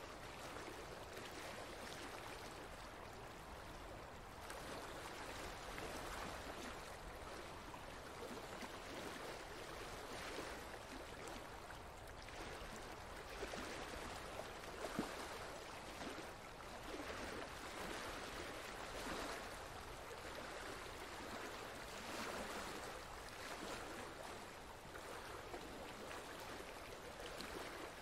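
Faint, steady rushing of flowing water, like a stream.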